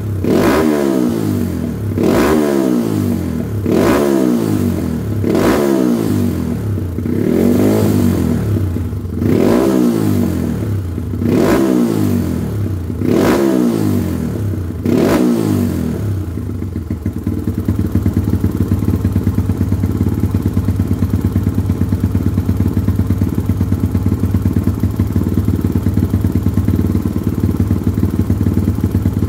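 Kawasaki KLX dirt bike's single-cylinder four-stroke engine through an aftermarket racing exhaust, blipped in a regular series of quick revs about every two seconds. About 16 seconds in the revving stops and it settles to a steady idle.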